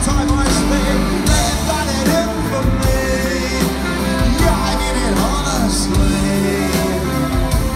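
Live rock band playing loudly, a man singing lead over drums, bass, keyboards and saxophone.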